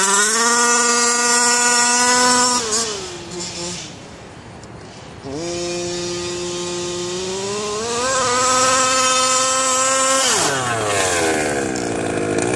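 Rovan LT305 gas RC truck's 30.5cc two-stroke engine running at high revs. It fades for a couple of seconds about three seconds in, comes back and climbs again, then drops sharply in pitch near the end before picking up once more.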